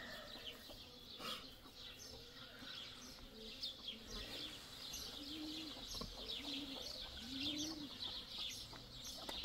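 Small birds chirping throughout, with a dove cooing three or four times in low, arched notes around the middle.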